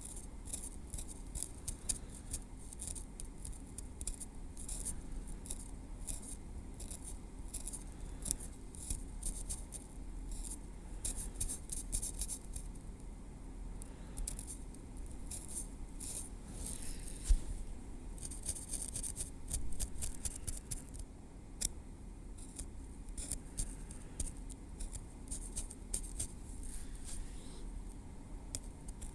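Tweezers working through hair on a scalp: a long, irregular run of soft, high ticks and scratches.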